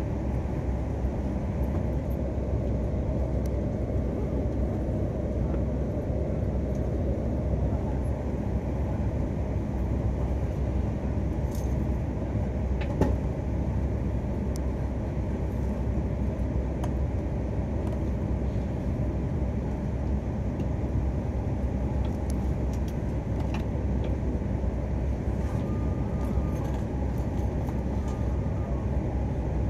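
Steady low hum inside the passenger car of a stationary Akita Shinkansen Komachi train (E6 series), its onboard equipment running while it stands at the platform, with a single click about thirteen seconds in.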